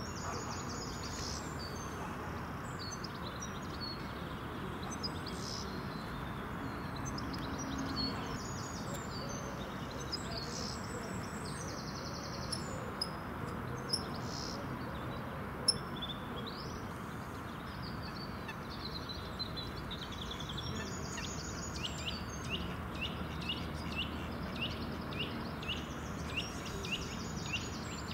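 Outdoor ambience of small songbirds chirping and singing over steady background noise. In the last third one bird repeats a quick downward-sliding note about twice a second, and there is a single sharp click a little past the middle.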